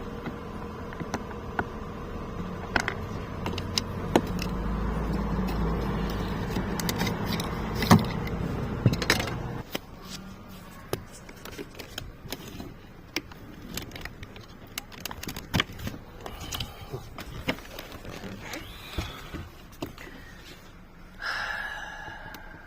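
Clicks, knocks and light clatter of hands and tools working on a car's plastic door trim and its screws, over a steady hum that stops about ten seconds in.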